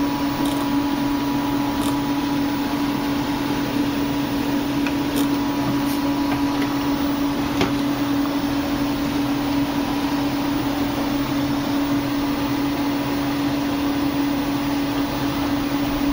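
A steady machine hum with one constant low tone and hiss, with a few faint clicks in the first half.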